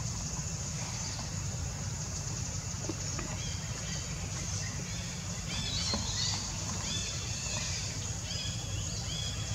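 Outdoor ambience with a steady low rumble. From about halfway, a run of short, high chirping animal calls repeats about once a second.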